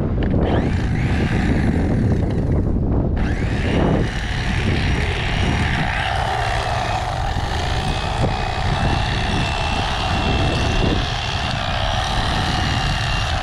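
Mister Twister Piranha electric fillet knife running, its motor buzzing steadily as the reciprocating blades cut through a crappie. The buzz thins briefly about three seconds in, then carries on.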